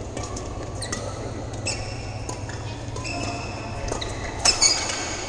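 Badminton play: sharp racket hits on the shuttlecock, the loudest two in quick succession near the end, mixed with short high squeaks of court shoes on the synthetic mat. A steady low hum runs underneath.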